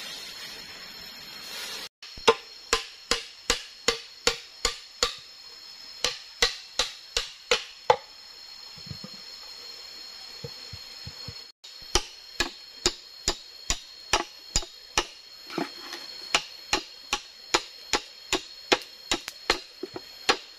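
Machete blade chopping into bamboo: sharp, crisp knocks about twice a second, in two runs with a short pause in the middle.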